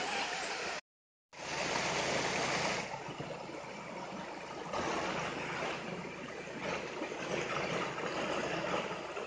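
Shallow river water rushing over rocks, a steady wash of noise, with a half-second drop-out about a second in.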